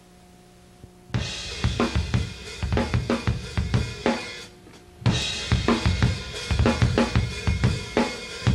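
Rock drum kit playing an intro, with kick, snare and cymbal hits in two phrases split by a short pause about four seconds in. Before the drums come in, about a second in, only a faint steady hum.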